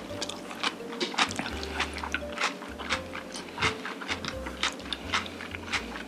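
Close-miked chewing of a mouthful of black bean noodles: wet mouth smacks and clicks, about three a second.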